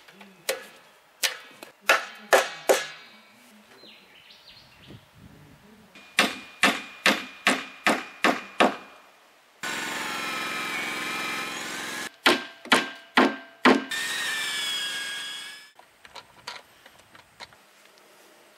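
Three runs of sharp hammer blows on hardwood, four to seven strikes each about half a second apart, each with a short ring. Twice between them, for about two seconds each, a cordless drill runs, boring into mountain stringybark.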